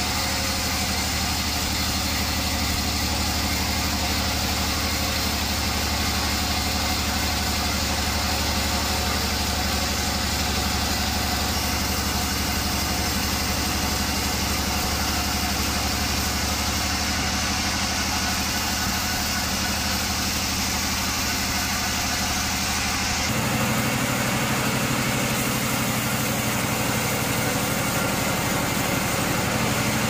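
Band sawmill running steadily, its blade cutting lengthwise through a large log: a constant machine hum under a hiss of sawing. About three-quarters of the way through, the low hum abruptly changes pitch and holds steady again.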